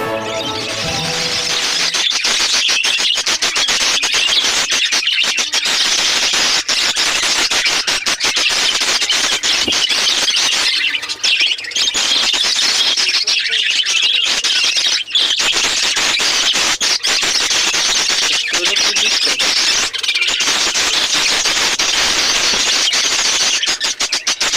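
Flock of aviary budgerigars chattering and squawking, a dense unbroken mass of high calls from many birds at once.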